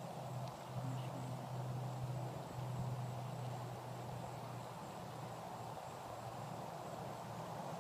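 Quiet outdoor background noise with a steady low hum that fades out about halfway through.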